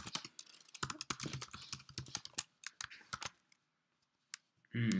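Computer keyboard typing: a quick run of keystrokes for about three seconds, then a pause with a single further key tap.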